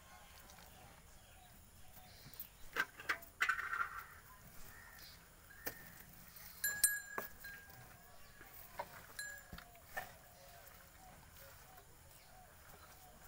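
Scattered knocks and clicks around a Holstein Friesian cow standing on concrete, with a brief metallic clink about seven seconds in; the rest is a low background.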